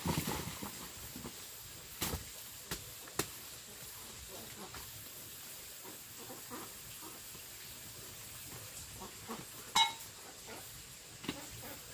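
Cassava roots tumbling out of a woven bamboo basket onto a sack on the dirt, followed a couple of seconds later by three sharp knocks. A short, high squeak sounds near the end.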